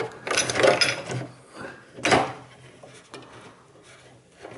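Plastic rubbing and knocking as a refrigerator's thermostat control housing is handled. There is a louder scrape about two seconds in, and it grows quieter toward the end.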